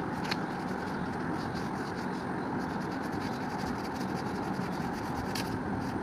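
Fingers rubbing and smudging pastel on sketchbook paper, a soft irregular rubbing over a steady background noise.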